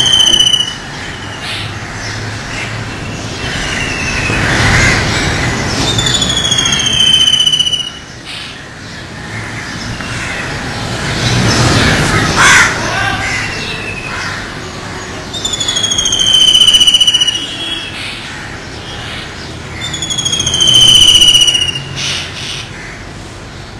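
White-throated kingfisher calling: shrill, falling screeches, each about a second long, repeated every few seconds over steady background noise.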